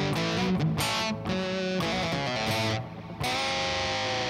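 Esquire-style electric guitar played through an amp: a run of picked notes and chords, with a short break about three seconds in followed by a held, ringing chord.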